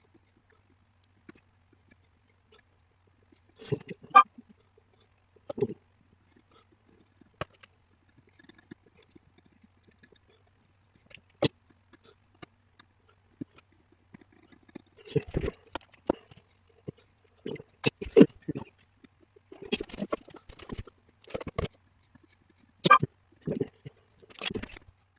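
Irregular sharp clicks, taps and short rustling knocks of small tools being handled on a workbench during soldering of an HDMI port. The noises are sparse at first and come thick and fast from about halfway on.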